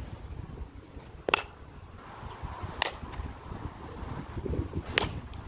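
Sharp crack of a baseball bat hitting a pitched ball about five seconds in, with two fainter knocks earlier, over low wind rumble on the microphone.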